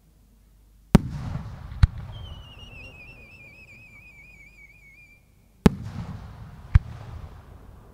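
Fireworks bangs: two loud booms a little under five seconds apart, each followed about a second later by a sharper crack and a rolling echo. Between them a firework's wavering whistle slowly falls in pitch for about three seconds.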